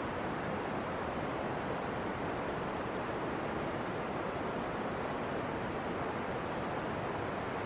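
Steam venting from a volcanic fumarole: a steady, even hissing roar that doesn't change.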